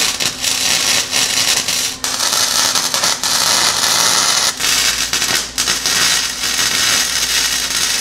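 Lincoln Electric 125 HD flux-core arc welder, fed with .035 wire, running a weld that joins a stainless steel pipe to a mild steel tailpipe. The arc makes a steady, loud crackling sizzle, broken off briefly a couple of times.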